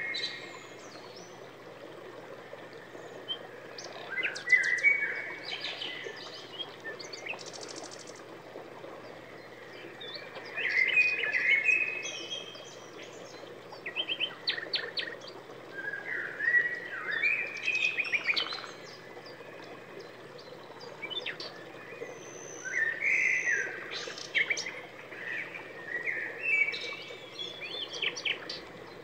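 A small songbird singing: bursts of chirps, clicks and warbled phrases every few seconds, with short gaps between them.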